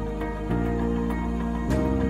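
Background music: held chords that shift about half a second in and again near the end.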